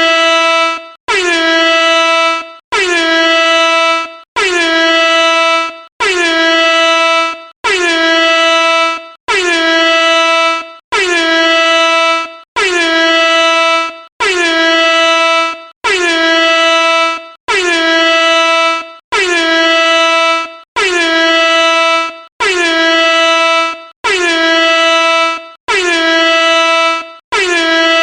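Air horn sounding in a loop of repeated loud blasts, about one every second and a half. Each blast dips briefly in pitch at the start, then holds one steady tone before cutting off.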